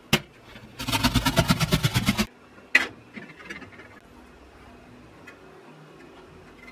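Onion being grated on a flat metal grater: quick, even scraping strokes, about nine a second, for about a second and a half, followed by one sharp knock.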